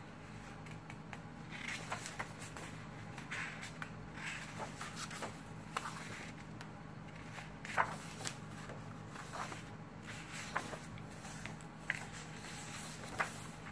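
Paper pages of a hardcover coloring journal being turned one after another: soft rustles and swishes with a few sharper flicks.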